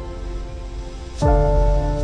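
Background music: a slow, ambient instrumental of held chords, with a new chord and a deep bass hit coming in just past halfway.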